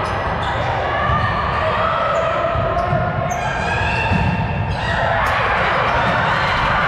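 Indoor volleyball rally: sneakers squeak on the hardwood gym floor and the ball is struck a few times, echoing in the hall. About five seconds in, players' and spectators' voices swell into shouting.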